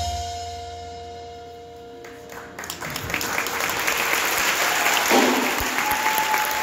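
The final held brass chord of an indoor winds ensemble fades and ends about two and a half seconds in. The audience then breaks into applause and cheering.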